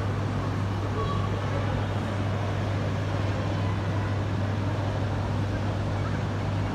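A steady low engine rumble over outdoor background noise, unchanging in level.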